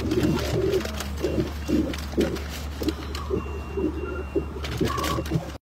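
Steady low hum of an idling car heard from inside the cabin, with irregular soft knocks and rustling over it and a few short faint high beeps about three to four seconds in; the sound cuts out abruptly just before the end.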